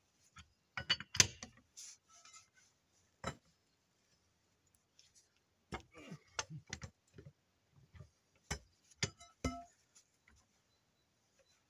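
Scattered sharp clicks and knocks of metal tools and parts being handled during work on a forwarder wheel, coming singly and in a short cluster past the middle.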